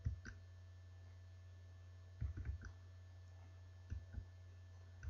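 Faint clicks of a computer being worked, coming in four short clusters of two or three, over a steady low mains hum.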